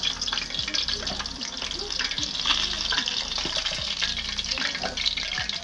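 Mackerel frying in hot oil over medium heat: a steady sizzle full of small crackles and pops.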